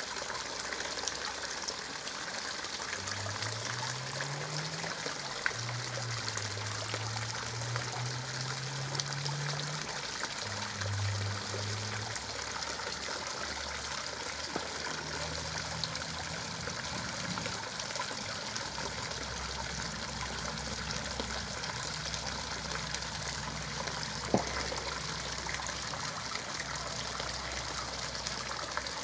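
Steady trickle of running water, with a faint low hum that steps up and down in pitch behind it and a single sharp click near the end.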